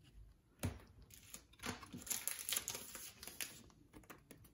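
Trading cards and a soft plastic card sleeve being handled: faint crinkling with scattered light clicks.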